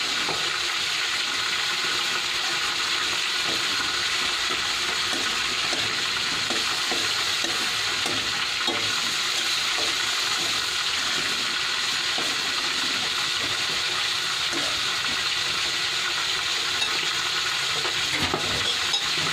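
Bitter melon and meat sautéing in a steel frying pan over a gas burner, giving a steady sizzle, with a spatula scraping and tapping the pan now and then as the dish is stirred.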